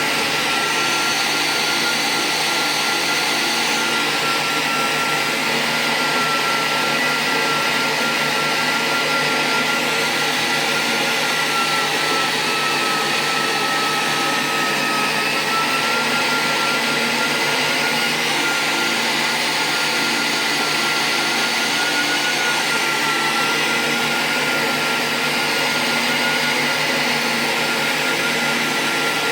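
A small electric motor running steadily with a continuous high whine and an airy rush, its pitch sagging slightly about halfway through and then recovering. It is a Siemens medical device under test after a circuit board repair.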